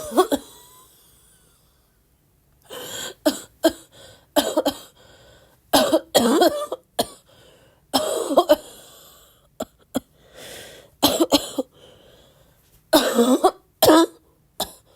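A sick woman's barking coughing fit: after about two seconds of quiet, she coughs again and again in clusters of two or three harsh coughs, with short gasps for breath between them.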